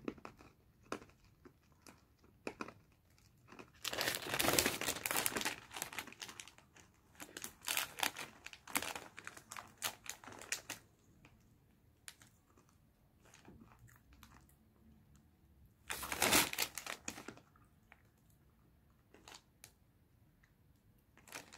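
Plastic wrapping of a packet of hard sweets crinkling as it is handled, in three main bursts with small scattered rustles between.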